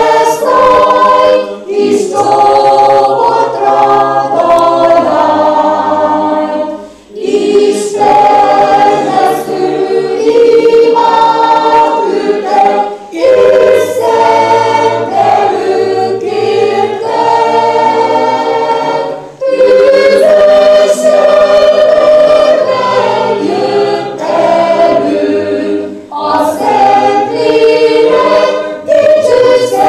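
A choir singing together, with several voices holding sustained notes in phrases of several seconds and brief breaths between them.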